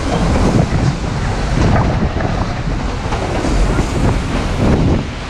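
Wind buffeting the microphone, with the low rumble of the moving narrow-gauge train underneath.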